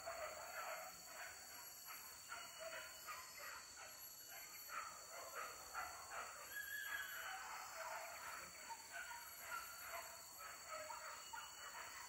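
Pack of hunting dogs barking and yelping in pursuit, faint and distant, in a quick irregular run of short calls.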